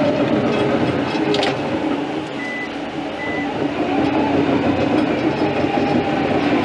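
Cat dozer's diesel engine running steadily under the cab, easing off briefly about two seconds in and then picking up again. Two short high beeps sound about a second apart in the middle.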